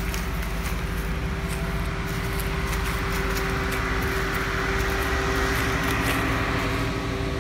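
A vehicle running: a steady motor hum with a rushing noise that swells through the middle and eases near the end.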